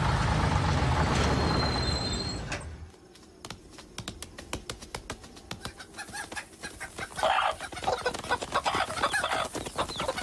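Cartoon chickens clucking in a group, starting about seven seconds in over a run of quick light clicks. Before that, a truck's low engine rumble fades out about three seconds in.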